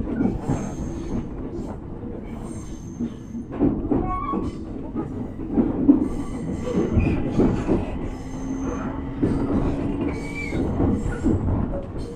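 Train running on the line: a steady rumble of wheels on rail with irregular knocks and rattles, and a few short high squeals now and then.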